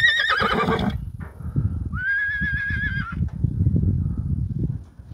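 A horse whinnying twice: a long, wavering high call that ends about a second in, and another about a second long starting about two seconds in. A low rumbling noise runs underneath and dies away near the end.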